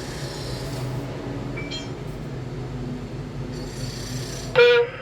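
Steady low hum of machinery inside a tower crane cab. Near the end comes a short, loud, steady tone.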